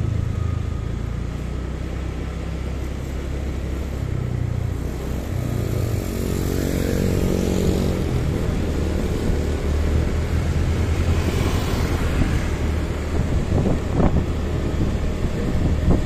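Motorcycle engine running steadily while riding in traffic, under road noise. An engine note swells about halfway through, and a few sharp knocks come near the end.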